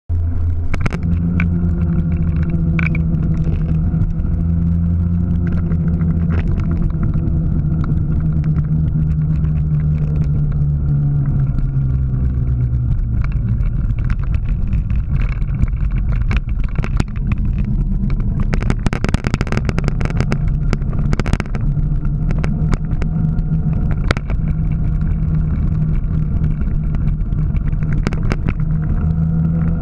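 Engine of the vehicle carrying the camera, running steadily at road speed with a low, even hum whose pitch dips a little around the middle. Short crackles and rushes of noise break in here and there, thickest about two-thirds of the way through.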